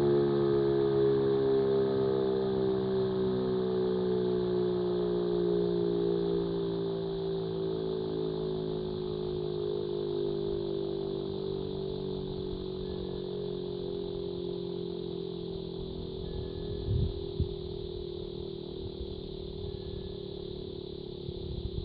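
E57 electromechanical air-raid siren running down: its chord of several pitches slowly sinks and fades as the rotor coasts to a stop. A couple of brief low thumps come near the end.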